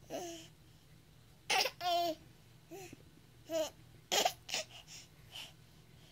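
Baby laughing in a string of short, high giggles and squeals, about seven in all, the longest about two seconds in with a wavering pitch.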